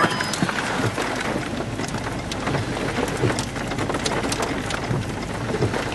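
Rain falling steadily, with many individual drops ticking sharply close by.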